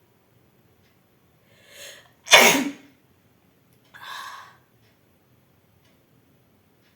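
A person sneezing once, loudly, about two and a half seconds in, preceded by a quick breath in. A shorter, softer breathy sound follows about a second and a half later.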